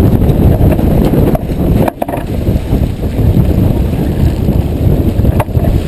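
Heavy wind buffeting the microphone of a camera on a sailboat under way, heard as a loud, low rumble, with a couple of brief sharp clicks, one of them near the end.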